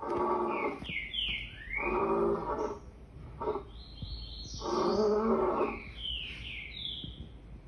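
Lion roaring in a series of short grunting calls, one every one to two seconds, with birds chirping between the calls.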